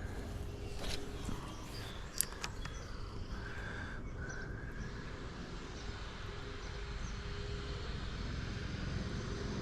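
Outdoor ambience on a lake: a steady low rumble, two sharp clicks about one and two seconds in, and a short bird call a little after three seconds.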